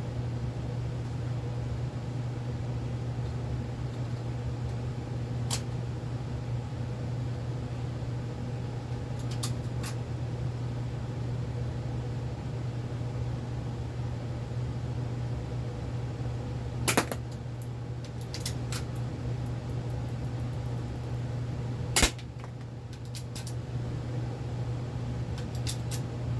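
Game Face M311 full-metal spring-powered airsoft pistol being cocked and fired at small targets. A few faint clicks come in the first half, then two loud, sharp snaps about five seconds apart in the second half, each followed by small ticks. A steady low hum runs underneath.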